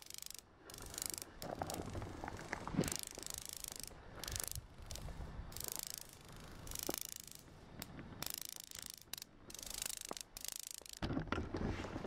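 Grasshopper-type insects making a dry rattling snap noise, in repeated bursts of up to about a second with short gaps between.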